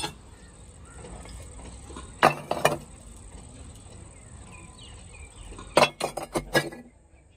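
Broken cast iron scrap pieces clinking and clanking against each other: a knock at the start, two about two seconds in, then a quick run of five or six near the end.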